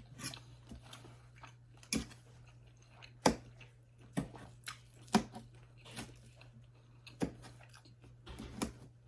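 Close-miked chewing of food, with irregular crisp crunches and clicks every second or so, over a faint steady low hum.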